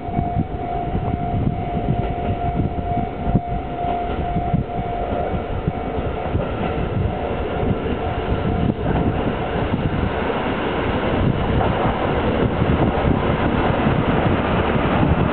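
A KiYa 97 diesel rail-transport railcar approaching and passing close by. Its engine and running noise build steadily, loudest near the end as it goes by. A steady high tone sounds over the first five seconds or so, then fades out.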